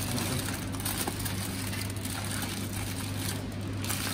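Aluminium foil crinkling and crackling as it is scrunched tightly by hand around a food parcel, over a steady low hum.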